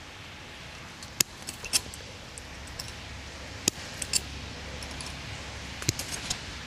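A metal hand tool working galvanized welded wire fencing: sharp metallic clicks and snaps in short clusters, about a dozen in all, over a faint steady outdoor hiss.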